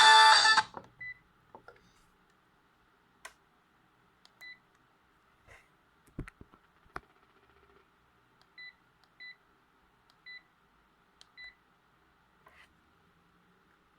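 A Sharp GX17 mobile phone's ringtone playing, then cutting off under a second in. It is followed by the phone's short keypad beeps, about six single high beeps a second or more apart, with a few faint clicks of handling.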